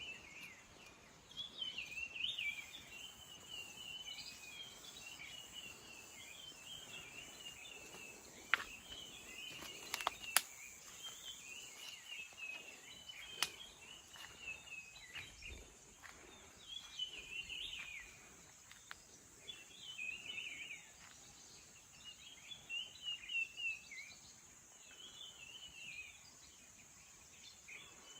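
Wild birds singing outdoors, short warbling phrases repeated every second or two. A steady high hiss runs underneath, and a few sharp clicks come around the middle.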